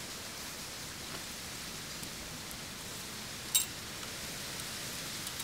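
Steady, even hiss of outdoor background noise, with one sharp click about three and a half seconds in.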